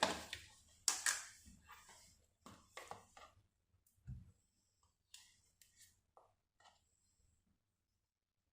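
Light handling sounds: a series of short knocks, clicks and brief rustles of objects being moved, loudest at the start and about a second in, then smaller taps that die away after about seven seconds.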